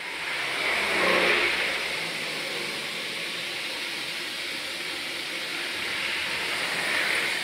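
Steady hiss of steam from a Darjeeling Himalayan Railway steam locomotive standing close by, with an engine sound swelling and fading about a second in.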